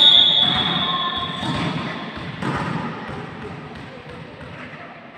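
Referee's whistle blown in one steady blast of about two seconds, followed by a volleyball thud about two and a half seconds in, over players' voices in the hall.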